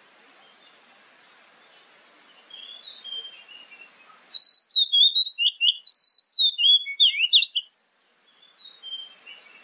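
Oriental magpie-robin song: soft whistled phrases, then a little over four seconds in a loud run of quick, varied whistled notes that stops abruptly about three seconds later, with faint song again near the end.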